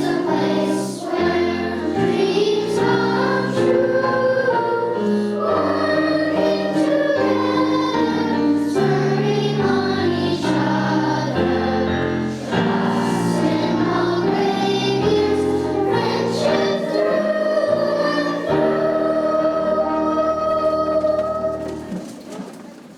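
Students singing a song as a group, with instrumental accompaniment of sustained chords and bass notes. The song comes to its end and fades out near the end.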